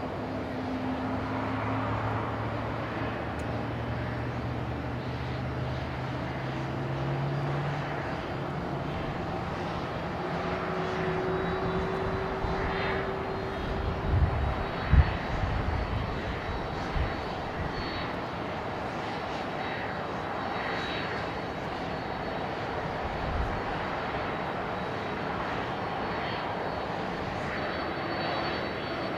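Jet airliner engines running with a steady roar, their whine rising in pitch over the first several seconds. A few low thumps come about halfway through.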